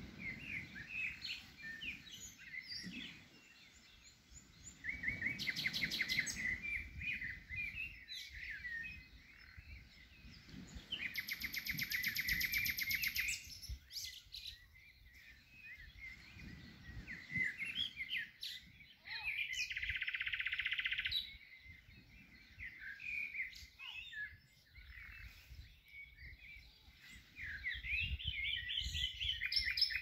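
Several small songbirds chirping and singing in a dawn chorus, with rapid trills about five seconds in and again around eleven to thirteen seconds, over a low rumble.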